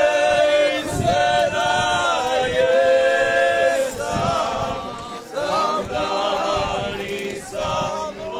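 A group of men singing together unaccompanied, in long drawn-out notes with brief breaks between phrases.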